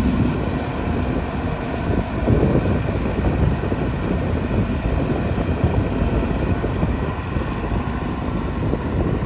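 Diesel engine of a JCB 140 NXT excavator running steadily while it works, a continuous mechanical drone with a brief swell about two seconds in.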